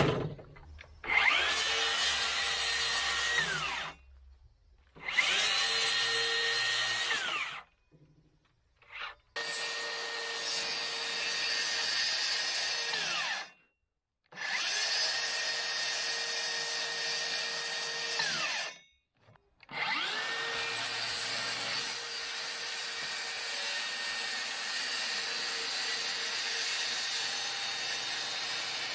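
HiKOKI 36V cordless circular saw cutting an opening in a plywood sheet. It is started and stopped five times, each run spinning up with a rising whine, holding a steady high whine while cutting, and winding down. The last run is the longest.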